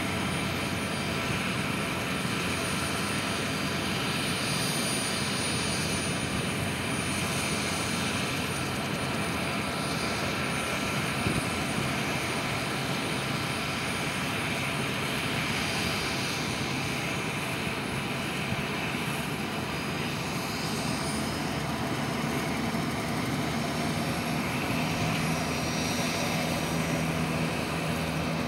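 Bell 206B JetRanger helicopter running with its main rotor turning: the steady whine of its turboshaft engine over a continuous rotor and engine rush.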